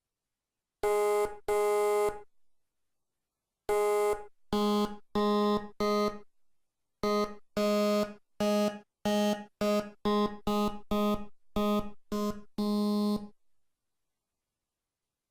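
A software synthesizer in LMMS playing a string of short, buzzy notes, all at one pitch and rich in overtones. The notes fall in an uneven rhythm and each one stops abruptly.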